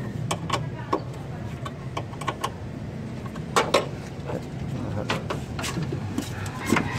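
Metal clicks and clinks of a wrench and clamps on car battery terminals as the battery is fitted, the loudest pair about three and a half seconds in, over a low steady engine hum.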